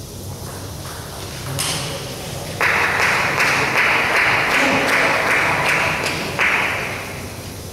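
A sharp table tennis ball hit ends the rally, followed about a second later by a small crowd's applause, with clapping about three times a second for roughly four seconds before it stops.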